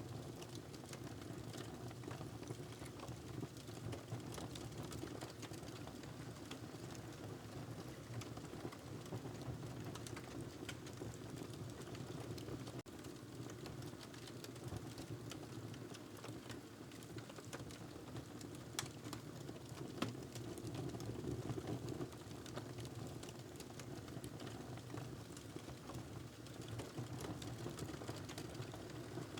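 Wood fire crackling in a fireplace: a steady low rush of flames with frequent small snaps and pops, two of them sharper about two-thirds of the way through.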